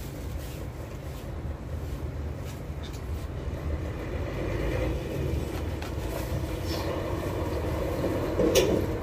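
Steady low rumble of heavy vehicles, growing somewhat louder in the second half, with one sharp knock near the end.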